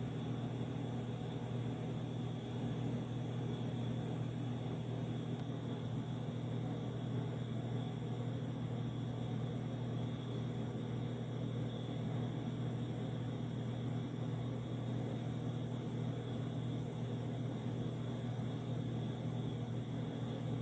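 A steady low hum with a faint even hiss, unchanging throughout, with no distinct events.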